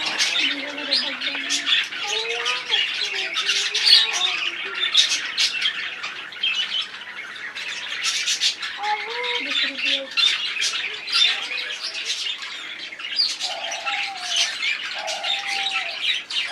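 Many birds chirping and squawking in a dense, continuous chatter of quick high calls, with a few lower gliding calls mixed in.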